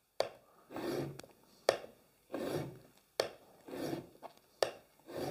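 Router plane blade in a small sharpening jig being honed with backstrokes on an oiled 1200-grit sharpening stone. Four strokes, each a sharp click followed by a short gritty rub, about one every second and a half.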